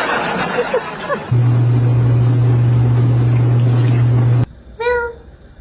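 A loud, low, steady drone lasting about three seconds that cuts off suddenly, followed by a short cat meow near the end.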